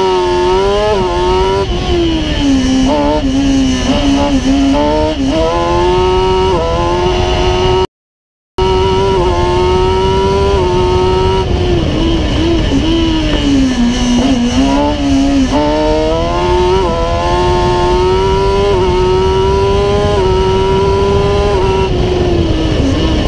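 Kawasaki ZX-10R 1000 cc inline-four motorcycle engine in a single-seat race prototype, driven hard: the revs climb and drop sharply over and over as it shifts gear, with steady wind and road noise heard from on board. The sound cuts out for under a second about eight seconds in.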